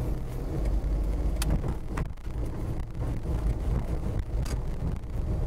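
Kei camping car driving, heard from inside: a steady low road and engine rumble, with two short clicks or knocks, one about a second and a half in and one near four and a half seconds.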